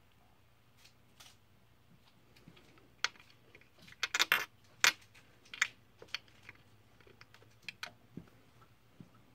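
Small metal enamel pin and plastic figures clicking and tapping on a glass shelf as they are set down and shifted: a scatter of light, sharp clicks, thickest around the middle and thinning out near the end.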